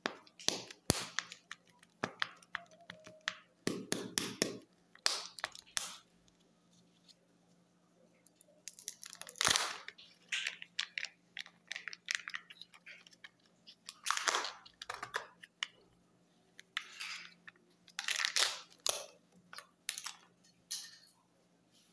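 Thin foil-film wrapper of a Kinder Joy egg crinkling and tearing as it is peeled off the plastic egg, then the plastic shell being handled and pulled open, in irregular bursts of crackles, rips and sharp clicks.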